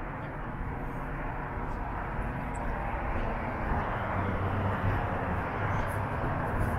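Distant engine noise outdoors: a steady rumble that slowly grows louder over a few seconds.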